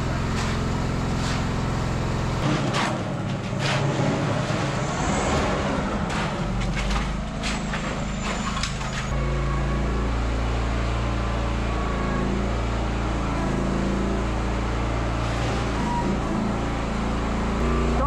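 An engine runs steadily under the whole stretch. Metal shovels scrape and knock in wet concrete, with a cluster of sharp clanks between about two and nine seconds in.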